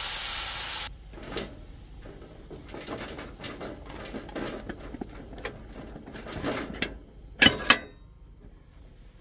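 Pressure cooker venting steam through its valve with a loud hiss at the end of cooking, which cuts off suddenly about a second in. Then light clicks and knocks of the metal lid being handled, with two sharp clanks near the end.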